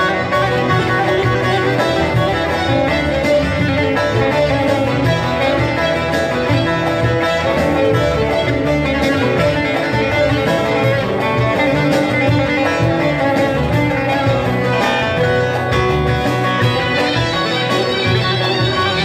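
Loud live music: an instrumental passage led by a plucked string instrument over a steady low beat.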